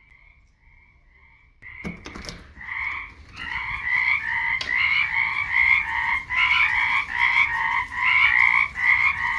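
A frog chorus of many frogs calling in overlapping croaks, faint at first. About two seconds in, a door is opened with a few clicks and knocks, and the chorus then becomes loud and close and keeps going.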